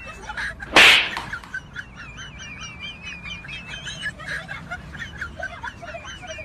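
Small birds chirping in rapid, repeated wavy calls, with one loud sharp hit about a second in.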